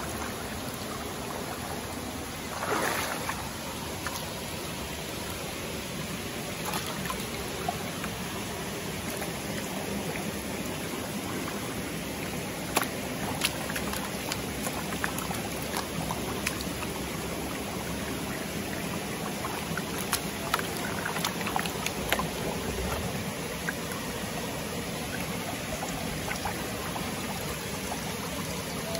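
A shallow river running and trickling steadily, with a brief louder splash about three seconds in and scattered sharp clicks later on.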